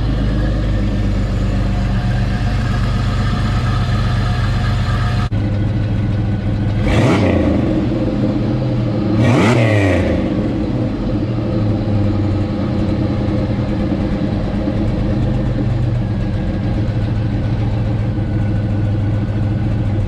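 Supercharged 3800 V6 (L67) engine idling steadily, blipped twice to a quick rev that rises and falls back, then switched off at the end. The header exhaust leak is fixed with new gaskets, and the engine sounds a lot better.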